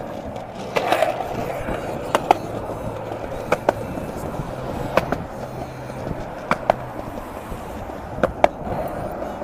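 Skateboard rolling on pavement: a steady rumble from the wheels, broken by sharp clicks in close pairs every second or so as the front and back wheels cross joints in the pavement.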